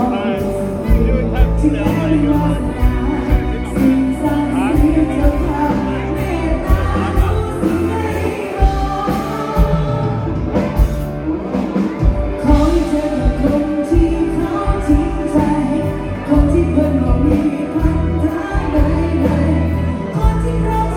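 Live bar band playing a song with a singer, over bass and a steady drum beat.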